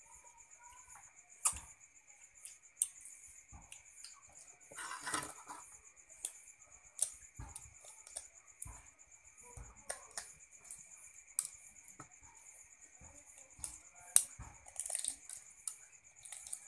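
Shell of a boiled balut duck egg being cracked and picked off by hand: irregular sharp cracks and clicks, a few seconds apart. A faint steady high tone runs underneath.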